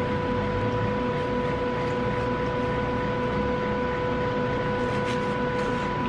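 A steady machine hum with a constant pitched tone over an even rushing noise, unchanging throughout.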